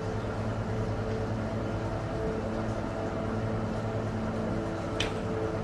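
Steady low background hum with a few faint steady tones, and one short tap about five seconds in.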